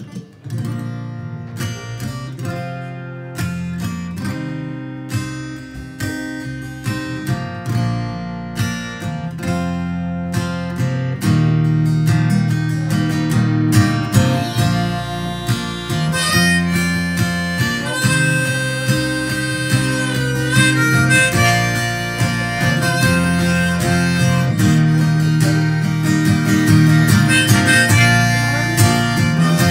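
Live acoustic guitar strumming with harmonica over an electric bass: the instrumental opening of a folk-rock cover, with the harmonica's held notes coming forward in the second half.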